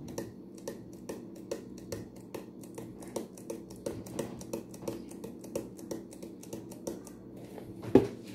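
A jar of Kashmiri chili powder being shaken and tapped over a bowl, giving light, quick taps about three a second, then a louder knock near the end.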